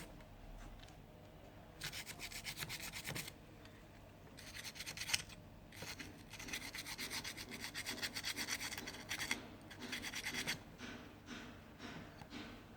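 Rapid scrubbing strokes on a phone's circuit board, cleaning the charging-jack solder pads with petrol, in several bouts of quick back-and-forth rubbing with short pauses between.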